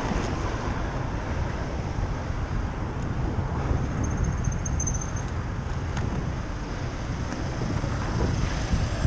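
Wind buffeting a cyclist's camera microphone while riding, with road traffic going by. A faint, brief high whistle sounds near the middle.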